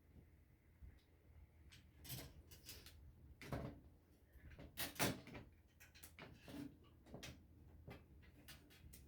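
Faint, irregular knocks and clicks of parts being handled while an old Sharp TV is taken apart, the loudest about three and a half and five seconds in.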